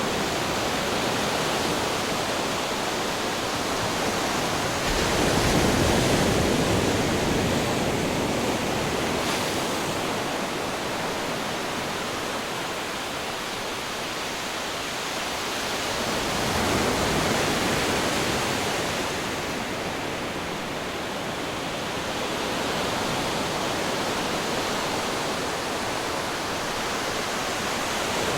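Ocean waves crashing against rocks: a continuous rushing wash of surf, swelling louder with a breaking wave about five seconds in and again about seventeen seconds in.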